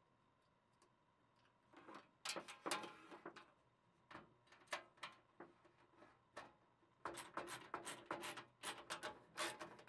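Faint clicks and taps of small metal parts and a grounding wire being fitted onto a bolt on a sheet-metal cabinet door, then from about seven seconds in a run of quick clicks from a socket ratchet tightening the bolt.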